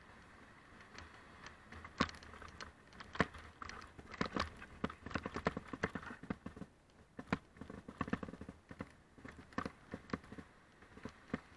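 Mountain bike rolling down a rough gravel track: irregular clicks, knocks and rattles as the bike jolts over loose stones, thickest in the middle.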